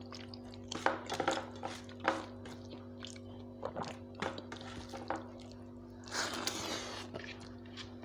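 Close-up eating sounds: chewing, with small clicks and smacks as fingers mix rice on a steel plate, and a brief hiss about six seconds in, over a steady low hum.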